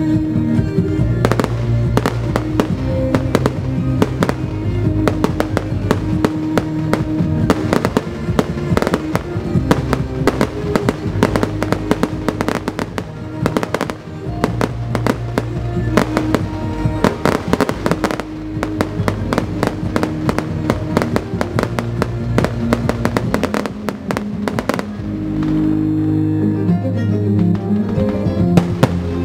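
Fireworks going off in rapid, dense bangs and crackles over music with sustained notes; the bangs thin out near the end, leaving the music.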